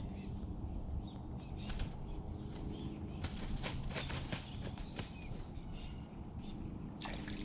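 Outdoor ambience with a steady high insect buzz and a faint low hum underneath. A cluster of sharp clicks and taps comes about three to five seconds in.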